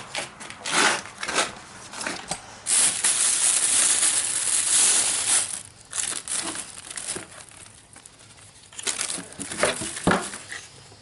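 Plastic packaging of a fog light kit crinkling and rustling as it is handled, in short bursts with one long continuous stretch of crinkling in the middle.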